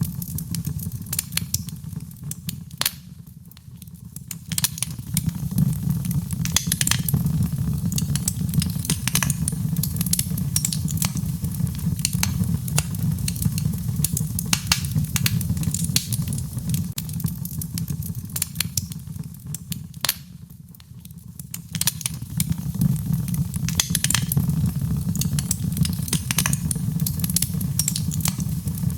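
Wood fire burning in a fireplace: a steady low rumble of flames with frequent sharp crackles and pops. The rumble fades briefly twice.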